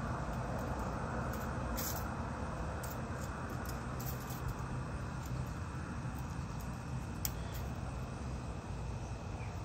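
Steady low background rumble and hiss with a thin, steady high tone, and a few faint light clicks of metal engine parts being handled.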